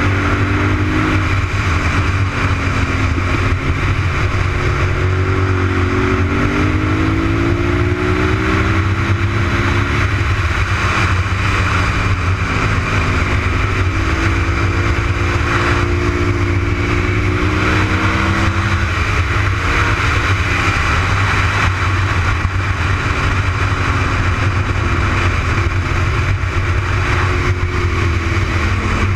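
Honda RC51's 1000 cc V-twin engine at speed on a race track, its note climbing and dropping back several times as the throttle opens and the rider shifts and slows for corners, with a steady rush of wind over it.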